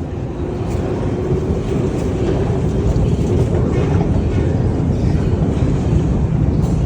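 Saint Petersburg metro train running, a loud steady rumble with a faint whine over it, growing slightly louder.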